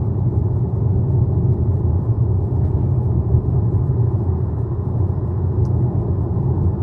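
Steady low road and tyre rumble inside the cabin of a Tesla Model Y electric car cruising on a highway.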